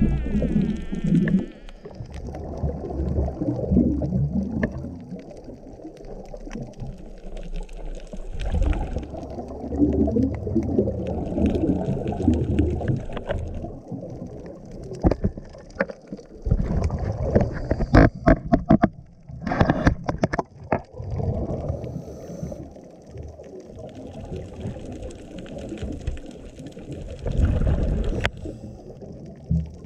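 Scuba breathing through a regulator, heard underwater: the gurgling rumble of exhaled bubbles swelling every few seconds, with quieter hiss between. A run of sharp clicks and knocks comes about two-thirds of the way in.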